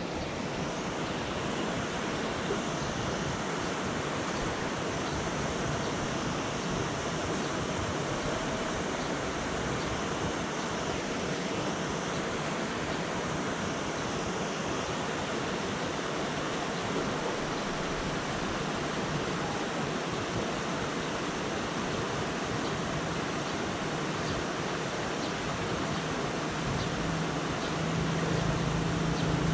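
Steady rain falling, an even hiss with no break. A low hum comes in near the end.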